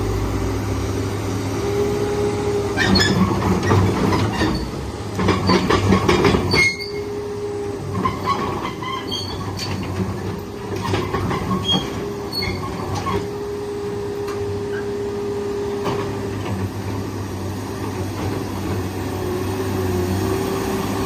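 Komatsu PC240-8 excavator running with a steady low hum and a steady whine. Two spells of metallic clanking and squealing, each a few seconds long, come in the first half.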